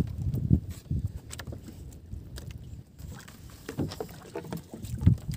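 Water slapping and lapping against the hull of a small outrigger boat, with irregular low knocks and scattered short clicks as the fishing line is handled.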